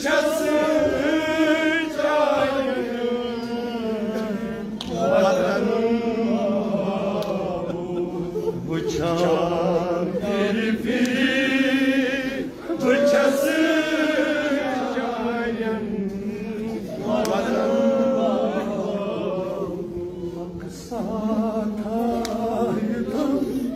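A man's voice chanting a Kashmiri nauha, a mourning lament, into microphones: long wavering held notes that rise and fall in drawn-out phrases, with brief breaks for breath.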